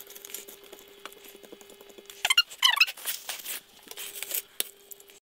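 Silicone spatula stirring and scraping chocolate pieces melting in coconut oil in a stainless steel saucepan, with a few louder scrapes about two seconds in. A faint steady hum from the induction hob runs underneath.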